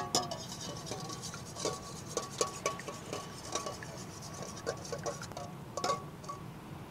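Wire whisk beating eggs and water in a stainless steel bowl: its wires click and scrape against the metal a few times a second in uneven strokes, and the bowl rings faintly.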